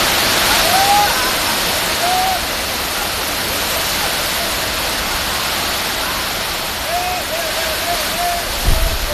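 Heavy storm rain pouring down in a steady rush. Faint short wavering tones come through it about a second in, at two seconds, and several times near the end.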